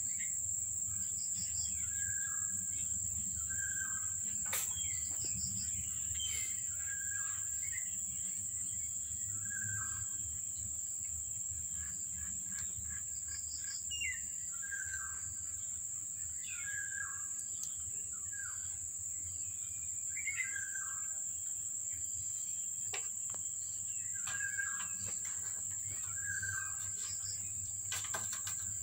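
Outdoor ambience: a steady high-pitched insect drone, with short bird chirps repeating every second or two over a low rumble.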